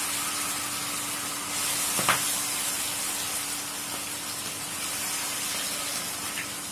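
Masala-coated fish pieces deep-frying in hot oil in an iron kadai: a steady, vigorous sizzle, with a single knock about two seconds in.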